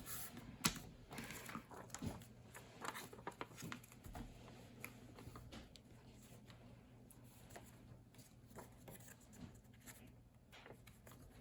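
Faint scattered taps and rustles of sheet paper being handled, over a faint low steady hum.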